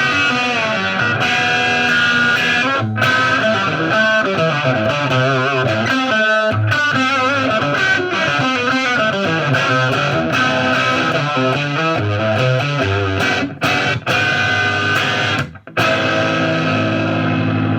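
Gibson ES-339 electric guitar through a 1970s Marshall 50-watt valve head and Greenback-loaded 4x12 cabinets, jamming an A minor, C, G, E/G# rock progression with chords and bent, vibrato single notes. It stops briefly twice near the end, then a last chord is struck and left ringing.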